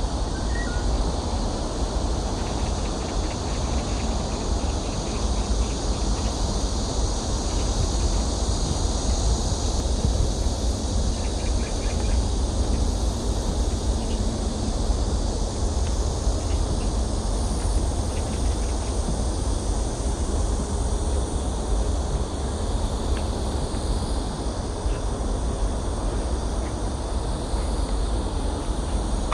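Outdoor ambience: a steady wind rumble on the microphone, with a continuous high chirring of insects above it.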